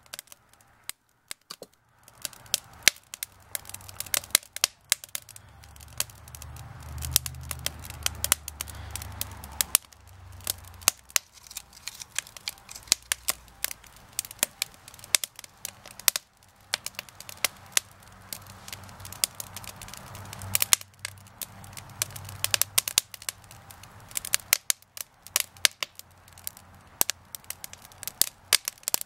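Wood fire burning, with frequent irregular sharp crackles and pops. A low rumble comes in for a few seconds about six seconds in.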